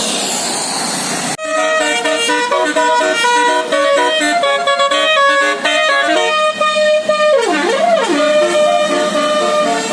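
A bus's 18-trumpet telolet musical air horn playing a quick stepped melody, starting abruptly about a second and a half in, with a siren-like swoop down and back up near the end.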